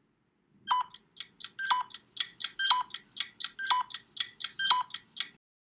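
A thinking-time sound effect that fills the pause between the question and its answer: a regular run of short electronic ticks, about four a second, with a stronger beep once a second, lasting about four and a half seconds.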